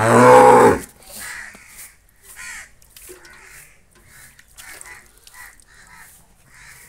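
Hand milking of a cow into a steel pail: milk spurting into the pail in short, separate squirts, with bird calls around it. It opens with a short, loud, low-pitched call lasting under a second.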